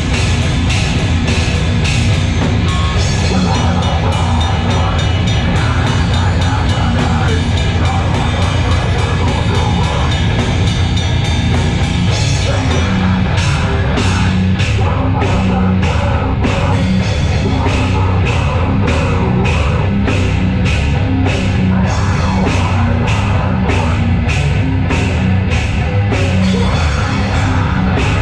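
Live heavy metal band playing at full volume, with distorted guitars and pounding drums. The drumming is very fast for the first half, then settles into evenly spaced hits about two a second.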